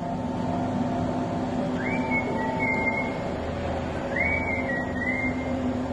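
Electric motor of a two-post car lift running with a steady hum, with a squeal that rises and holds about every two seconds as the lift moves.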